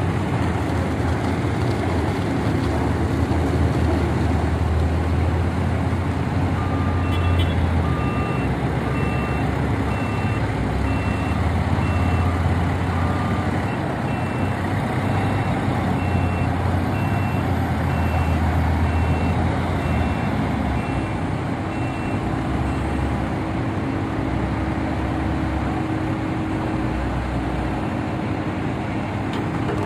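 Diesel engines of heavy earthmoving machinery, a backhoe loader among them, running steadily. From about seven seconds in, reversing alarms beep at an even pace, two alarms at different pitches; the lower one stops about halfway and the higher one stops a little later.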